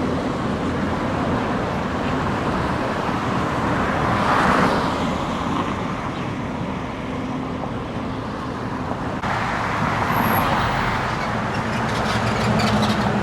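Steady road traffic noise from passing cars, swelling briefly about four seconds in.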